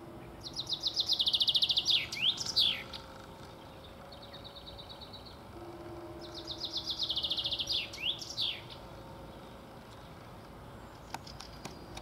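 Male common chaffinch singing its song twice, about three seconds apart: each a fast trill of repeated whistled notes ending in a sharp flourish of sweeping notes. A fainter short trill comes between the two songs.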